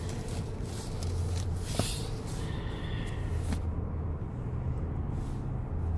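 Car cabin noise while driving: a steady low rumble of engine and tyres, with a single sharp click a little under two seconds in.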